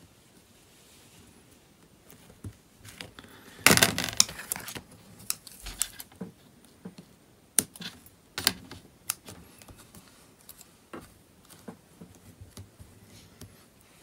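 Scattered small clicks and taps of hands working on an opened tablet's frame and housing while pressing adhesive strips into place, with a louder clattering rustle lasting about a second around four seconds in.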